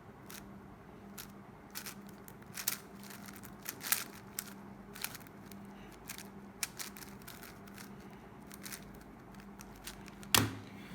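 Scattered faint clicks and clacks of a 5x5 speedcube's layers being turned by hand, irregular and a few per second, with one louder click near the end.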